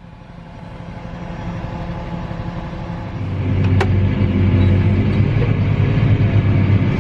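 Tractor engine running and growing louder over the first three seconds, then holding a steady, louder hum. A single sharp click comes about four seconds in.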